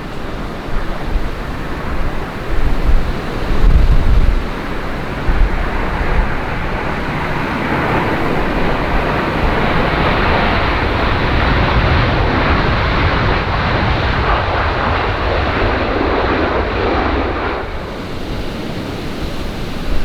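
Jet airliner passing on runway 24 at Prague, its noise swelling over several seconds, holding loud and then dropping away abruptly a couple of seconds before the end. Gusts buffet the microphone in the first few seconds.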